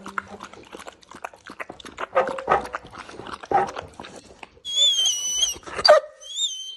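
A dog lapping a milky liquid from a plastic bowl, many quick wet laps. A little past the halfway point it breaks off into a high, wavering whine-like howl with a sharp knock, and a shorter one near the end.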